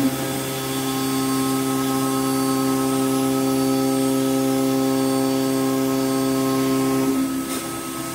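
Five-axis CNC router's spindle running steadily while it machines a wooden workpiece, a loud even hum with a whine above it. The tone drops and changes about seven seconds in.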